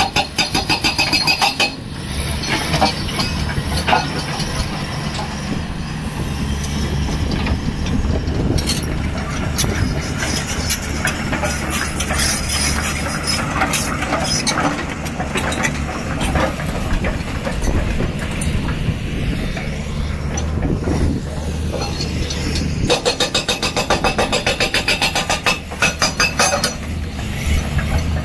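Hydraulic rock breaker on a Cat 320D3 excavator hammering rock in rapid, rattling blows, which stop about two seconds in. The excavator's diesel engine runs steadily with occasional knocks of stone. The breaker hammers again for a few seconds near the end.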